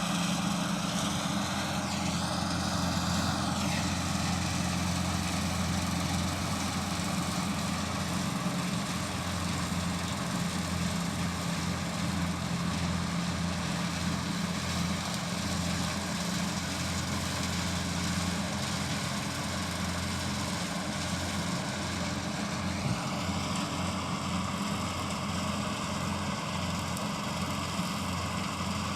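An engine running steadily at a constant low pitch. A higher whine shifts in pitch briefly about two seconds in and rises again near the end.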